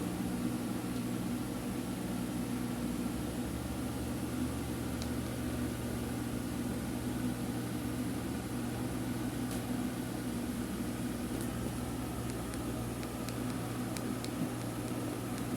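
A steady low mechanical hum, like a fan or small motor running, with a few faint clicks.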